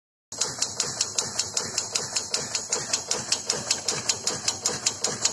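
Oil dispensing rig pumping oil through a preset oil meter: a fast, even clicking about four times a second over a steady high hiss, starting suddenly just after the start.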